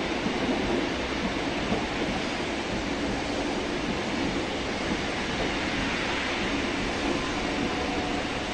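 SBB passenger train of single-deck intercity coaches rolling past along a station track: a steady rumble and hiss of wheels on rail.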